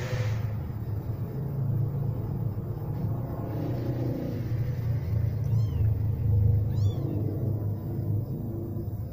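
Cat purring close up, a steady low rumble, with two short high-pitched kitten mews about five and a half and seven seconds in.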